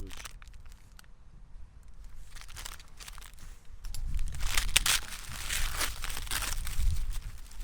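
Crinkling and rustling of firecracker packaging being handled: faint at first, growing louder and busier from about four seconds in.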